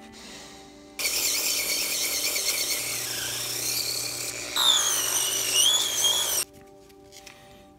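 Handheld rotary tool whining at high speed with a model car tyre mounted on its bit. It starts about a second in and cuts off sharply about five seconds later. Past the middle it gets louder and its pitch wavers as sandpaper is pressed against the spinning tyre to scuff the tread.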